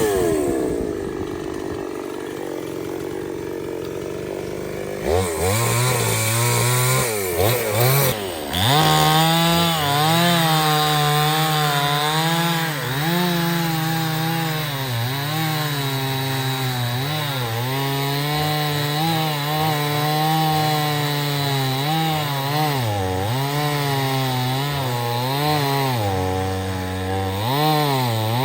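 Stihl 070 two-stroke chainsaw ticking over at first, then opening up about five seconds in and cutting into teak. Its engine pitch dips and recovers again and again as the chain loads in the wood.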